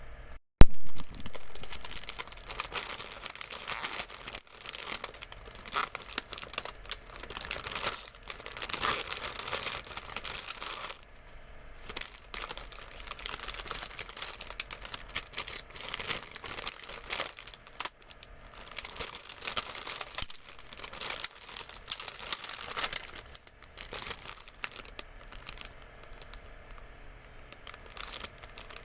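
Snack packaging being crinkled and torn open by hand, in irregular bouts of crackling with short pauses. A single sharp, very loud click comes just after the start.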